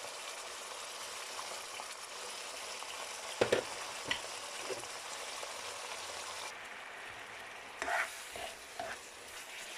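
Chicken pieces sizzling steadily as they fry in oil in a pan, with a few sharp knocks of a utensil stirring against the pan, the loudest about three and a half seconds in.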